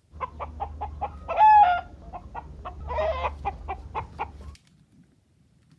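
Chicken clucking: a run of short clucks with a louder, drawn-out squawk about one and a half seconds in, over a low steady hum, stopping abruptly about four and a half seconds in.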